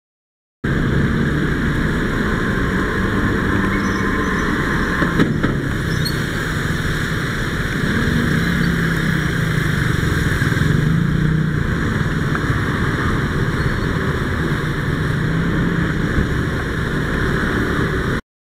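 City traffic heard from inside a car: the car's engine humming steadily under constant road noise, with scooters around it. A single short knock comes about five seconds in.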